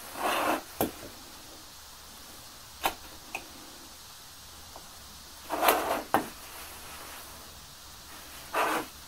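A wooden block slid and turned on a wooden workbench: three short scrapes of wood on wood, near the start, past the middle and near the end. Between them come a few light clicks and knocks as a metal square is set against a drill bit standing in the drilled hole.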